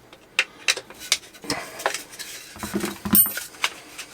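Irregular metal clicks and clinks of a screwdriver and Allen key turning and holding a bolt on a folding shotgun stock's hardware, snugging it down, with a sharper ringing clink about three seconds in.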